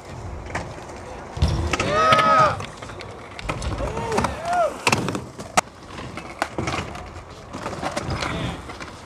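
BMX bike tyres rolling and landing on wooden and concrete skatepark ramps, with several sharp knocks and thuds of landings and falls. Voices call out twice.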